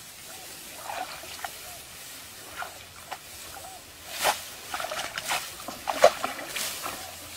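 Rice stalks rustling and shallow paddy water sloshing as someone pushes through a flooded rice field, a string of short rustles and splashes that grows louder and busier from about four seconds in.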